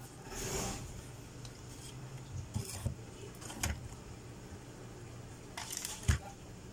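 Handling noise from a TV chassis circuit board being turned over and moved on a workbench: scattered small clicks, knocks and rustles, the loudest a sharp knock about six seconds in.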